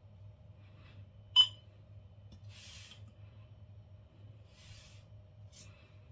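A single short, high-pitched electronic beep from a Stark W7 alarm panel about a second and a half in, over a faint steady hum. Two soft brushing noises follow.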